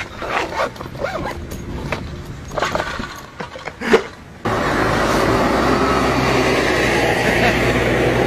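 Short, scattered handling sounds as a backpack is unzipped and searched. About halfway through, a sudden cut to loud, steady street traffic noise as a van approaches.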